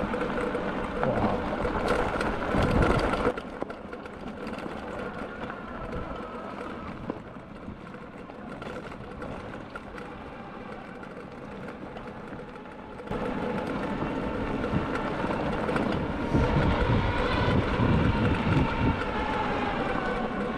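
Electric off-road motorbikes riding a dirt track: a steady electric-motor whine over tyre and wind noise, with the whine rising and falling in pitch near the end. The sound drops to a quieter level about 3 seconds in and picks up again about two-thirds of the way through.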